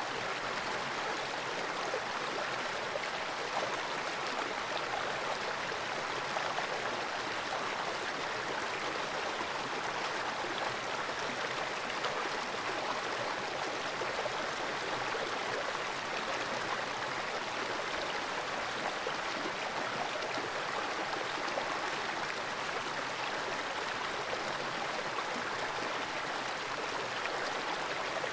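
Steady, even rush of fast-flowing creek water.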